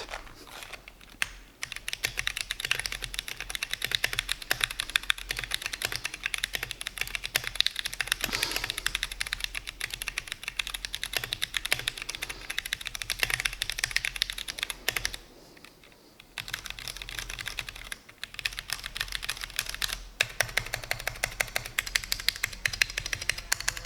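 Mechanical keyboard in an oak wooden base, typed on continuously: a dense, fast run of key clacks with a short pause about fifteen seconds in. The sound is thin and crisp, with a touch of echo from a high-ceilinged, concrete-floored room.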